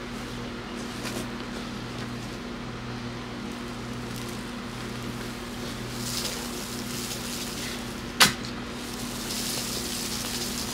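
Digging with a shovel in garden soil: loose dirt showering and scattering, a single sharp knock of the shovel going into the ground about eight seconds in, then more soil rustling, all over a steady low hum.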